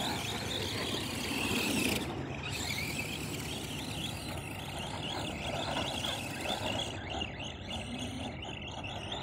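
Radio-controlled monster trucks driving through snow, their motors making a wavering whine that rises and falls with the throttle.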